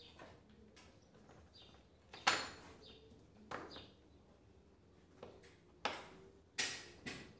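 Rubber spline being pressed into a mosquito-screen frame's channel with a spline roller, giving six short, sharp scraping and clicking sounds; the loudest comes about two seconds in.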